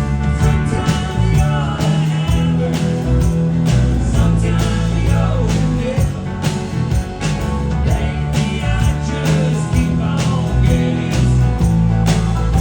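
Live rock band playing a song with guitar, bass and a steady drum beat.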